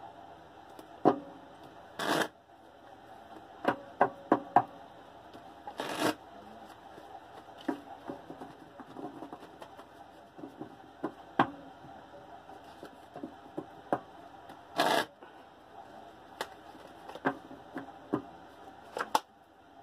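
A deck of tarot cards being shuffled by hand: scattered soft clicks and taps of cards, with brief sharper riffling bursts about two seconds in, about six seconds in and near fifteen seconds.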